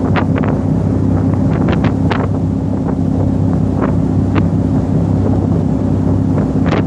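A car ferry's engines droning steadily under way, with wind buffeting the microphone in short crackles and the rush of the wake along the hull.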